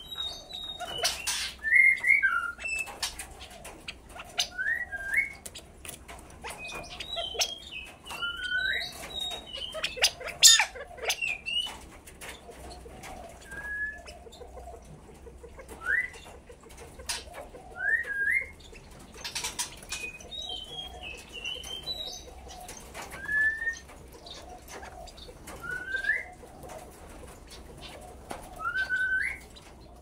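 Caged California quail calling with short rising chirps every second or two, some higher and some lower, with a few sharp knocks among them.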